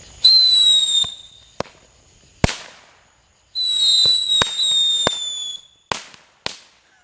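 Fireworks: two high whistles, each lasting one to two seconds and sliding slightly down in pitch. Several sharp bangs go off between and after them.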